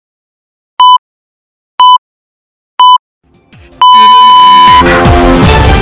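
Time-signal pips: short high beeps once a second, then a long beep on the hour about four seconds in. Intro music with a steady beat then comes in.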